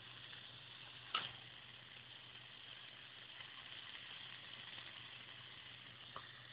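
Faint steady sizzling of a steak frying over low heat in a non-stick pan, over a low steady hum, with one sharp click about a second in.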